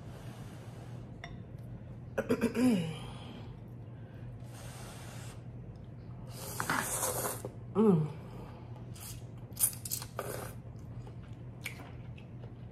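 A person slurping a mouthful of instant ramen noodles and chewing, with two short falling hums of enjoyment, and small clicks of chopsticks and spoon near the end.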